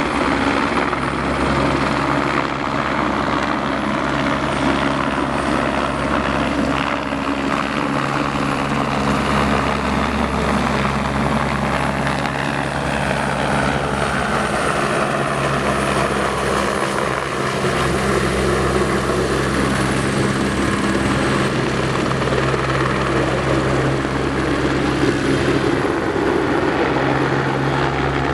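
Crop-spraying helicopter flying low on a pesticide spraying run over vineyards, its rotor and engine giving a steady drone.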